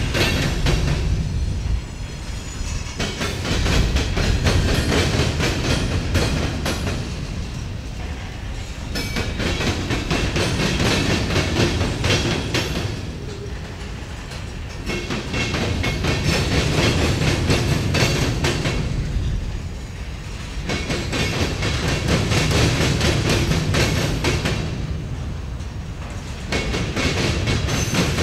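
Covered hopper cars of a freight train rolling slowly past, their wheels clacking over a railroad diamond crossing. The clatter comes in louder rounds about every five to six seconds over a steady low rumble.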